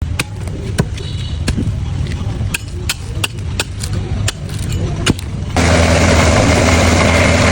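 Sharp, irregular knocks of tools working bamboo. About five and a half seconds in, an electric power tool starts abruptly and runs loud and steady.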